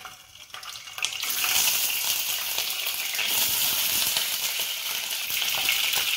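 Peeled hard-boiled eggs frying in hot oil in a kadai, the oil sizzling and spattering with a dense crackling hiss that starts suddenly about a second in.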